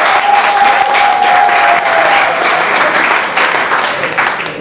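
An audience applauding, a dense clapping that thins out toward the end. A steady high tone sounds over it and stops a little over two seconds in.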